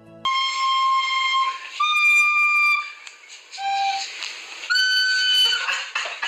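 A recorder blown hard, giving a string of about five shrill held notes at different pitches with short breaks between them, starting suddenly a moment in.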